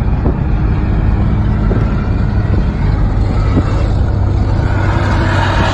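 Road and engine noise of a car at highway speed heard from inside the cabin: a loud, steady rumble with a low hum.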